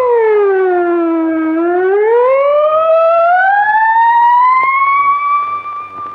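A loud, siren-like wailing tone. It falls in pitch, then rises slowly and holds steady near the end.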